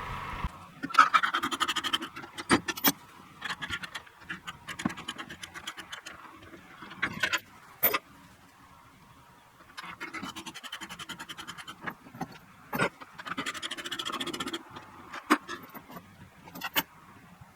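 Irregular scraping and rubbing with many sharp clicks and knocks, and no engine running.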